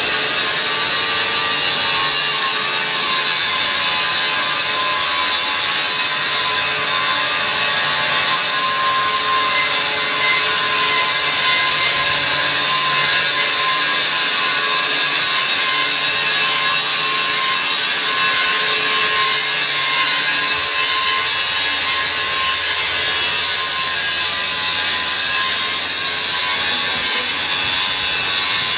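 Loud, steady workshop machinery noise: a continuous high hiss with a few faint steady tones underneath, of the kind power tools make when cutting or grinding.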